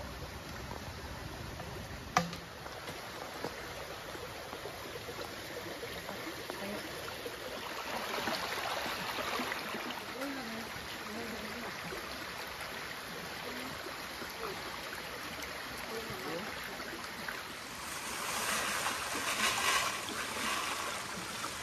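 Jungle stream flowing steadily, with a louder rush of water noise near the end. There is a single sharp knock about two seconds in.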